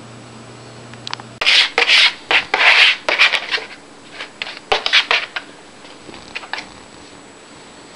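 Paper towels being clawed and scrabbled at by a cat: a run of loud, scratchy rubbing and rustling bursts from about a second and a half in, thinning to fainter scratches after about five seconds.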